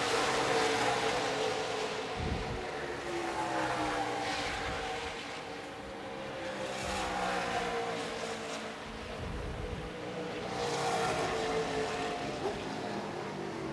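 NASCAR Truck Series race engines running laps on track in practice, several at once, their note slowly falling in pitch as they pass, swelling and fading twice.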